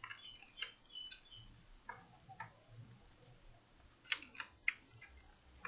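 Faint, scattered light clicks and taps from handling small laptop parts and connectors, with a quick cluster of sharper clicks about four seconds in.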